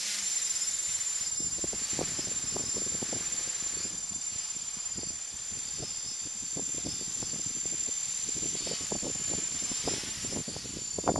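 Quadcopter's electric motors and propellers whining high in pitch, with gusts of wind buffeting the microphone.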